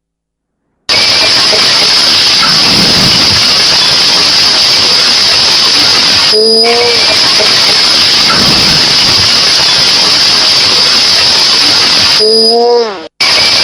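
Emergency alert alarm sound starting about a second in: a loud, steady hiss of noise with a constant high tone held over it. A short pitched glide comes about halfway through, and a downward-bending tone sounds near the end before the sound briefly cuts out.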